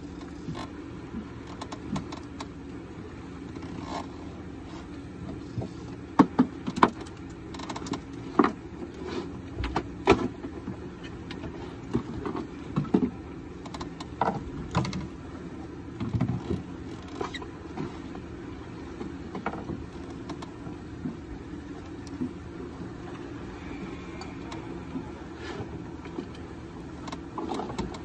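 Scattered clicks, knocks and rattles of rod, reel and tackle being handled on a fishing boat, thickest in the middle, over a steady low drone.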